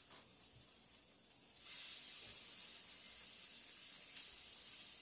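Chicken sizzling in a hot grill pan, a steady hiss that swells noticeably louder about a second and a half in.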